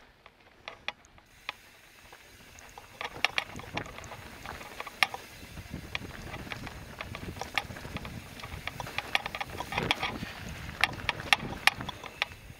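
Mountain bike rattling and clacking over rough trail, with irregular sharp knocks and clicks from the bike, and wind and tyre noise that rise about a second in.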